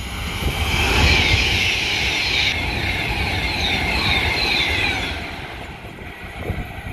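A train passing, its wheels giving a high-pitched squealing hiss on the rails that dies away about five seconds in, over a low rumble.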